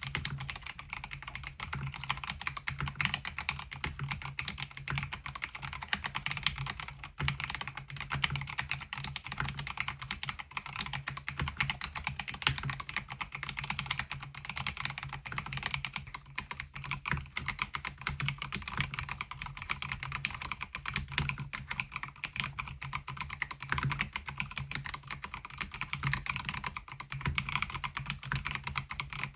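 Continuous typing on a MelGeek Mojo68 mechanical keyboard with MOA-profile keycaps, a steady stream of key clacks.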